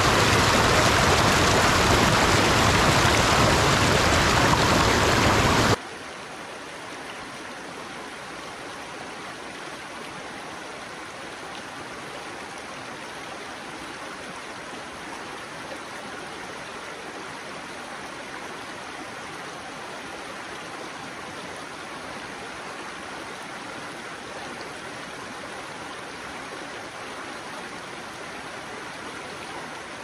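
Mountain stream rushing and splashing over boulders below a small waterfall. About six seconds in it cuts off suddenly to the softer, steady flow of a shallow creek over stones.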